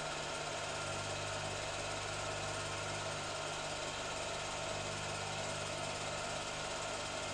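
A steady low hum with hiss that does not change at all, even as race cars pass in the picture: constant machine or electrical background noise rather than the sound of a passing car.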